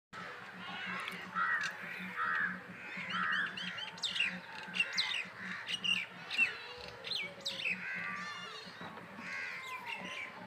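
Several birds calling and chirping, a mix of short repeated chirps and sharp descending whistled calls, with a few harsher crow-like caws. A faint steady low hum runs underneath.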